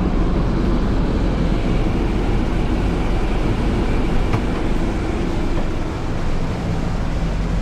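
Steady engine and road noise of a moving vehicle, continuous and even throughout.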